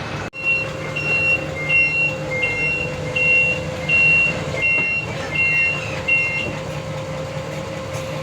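Vehicle reversing alarm beeping about nine times, roughly one beep every 0.7 seconds, then stopping about six and a half seconds in. Under it runs a steady engine hum.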